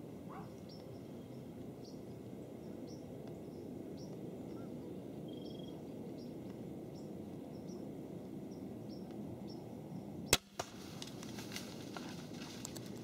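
Scorpyd Aculeus 160 crossbow fired at a deer, a single sharp crack about ten seconds in, with a second, softer knock a fraction of a second later. Scattered rustling and light footfalls follow as the deer runs off through dry leaves.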